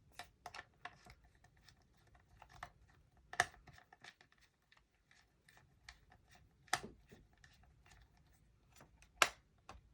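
Light plastic clicks and scraping as the Dell Latitude D630's bottom access cover is handled and fitted back onto the case, with a few sharper snaps, the loudest near the end.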